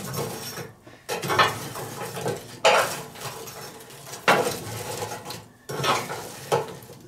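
Glowing charcoal being raked aside under a grill grate, in about seven strokes: coals scraping and clattering against the steel fire bowl, with metal clinks.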